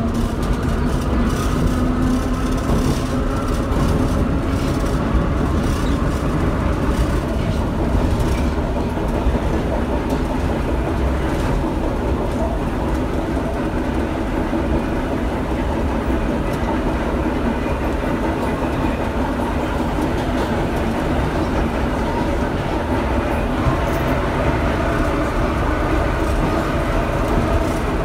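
Vintage IRT subway train running through a tunnel, heard from inside the car: steady, loud wheel and rail noise with scattered clicks.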